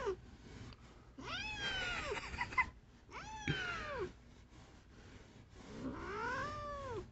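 Domestic cat yowling three times in long, drawn-out calls, each rising and then falling in pitch: an annoyed cat complaining while being petted.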